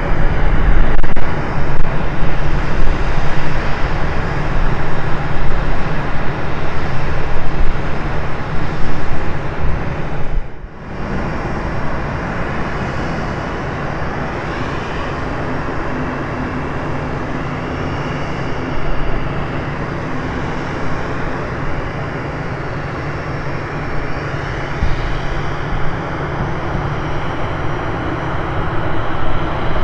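Antonov An-26's two Ivchenko AI-24 turboprop engines running as the aircraft taxis. The sound is loud and rough while heard from behind for the first ten seconds or so. After a sudden break it becomes quieter and steadier, with a low drone and a faint whine that slowly shifts in pitch.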